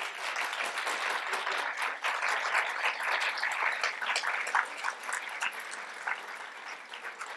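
Audience applauding, many hands clapping together; the clapping builds quickly, is strongest in the middle, and thins out over the last couple of seconds.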